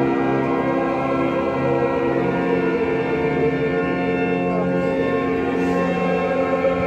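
A choir singing sacred church music over held, sustained chords that change every second or two.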